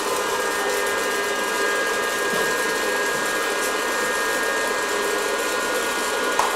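Hot-air popcorn popper's blower and heater running with a steady whir, kernels not yet popping.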